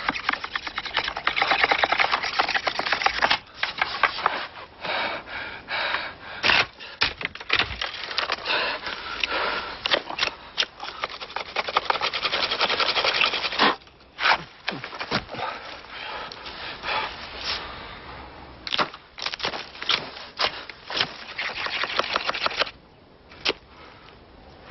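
Knife blade shaving and scraping along a wooden stick, whittling it: runs of rapid rasping strokes. About halfway the runs break off and give way to sparser, separate strokes that grow quieter near the end.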